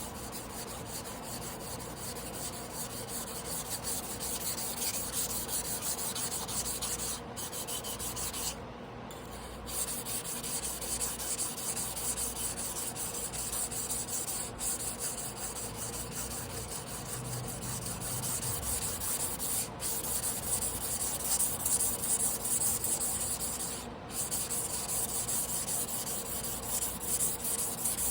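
Carbon-steel Damascus sashimi knife blade being ground by hand on a whetstone: a continuous wet rasping scrape of rapid back-and-forth strokes, broken by a few brief pauses.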